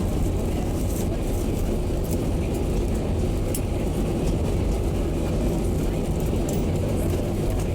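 Steady low rumble of an Airbus A320 heard from inside the passenger cabin, with a few faint rattles over it.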